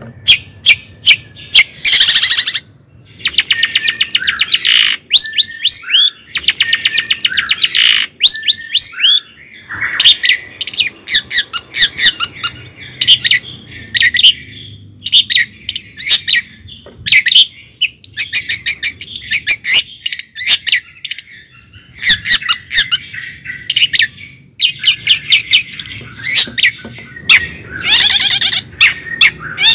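A bird chattering and squawking: rapid runs of clicks, harsh squawks and short whistled notes, with only brief pauses.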